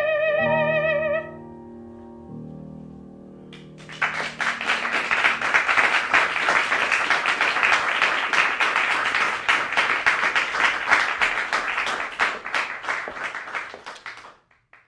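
A soprano's final held note, with vibrato over piano, ends about a second in; the piano rings on with soft closing chords, then an audience applauds for about ten seconds, fading out near the end.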